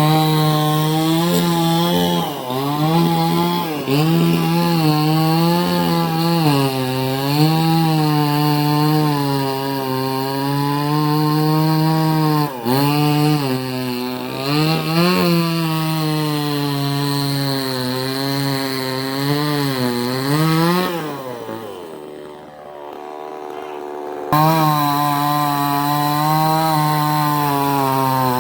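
Chainsaw cutting into mango wood, running at high revs with its pitch dipping again and again as the chain bites and bogs under load. About 21 seconds in, the engine drops back toward idle, then it revs up sharply again about three seconds later.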